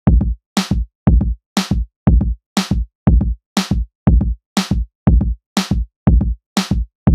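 Background music: a drum-machine beat, about two hits a second, with short gaps between the hits.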